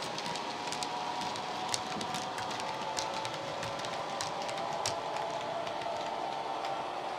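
Model railway freight wagons rolling along the track, their wheels clicking irregularly over the rail joints over a steady hum.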